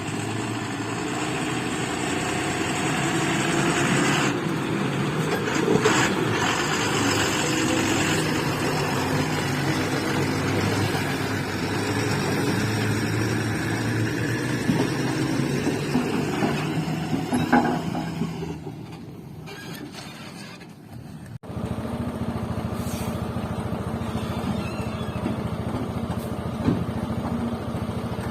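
Heavy diesel machinery running steadily under load. About three quarters of the way through it fades, then a sharp break brings back a steadier, lower engine drone.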